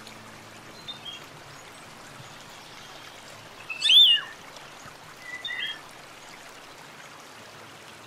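Scarlet finch calling: a few faint short notes about a second in, one loud, clear sweeping call about four seconds in, and a softer double note a second and a half later, over a steady background hiss.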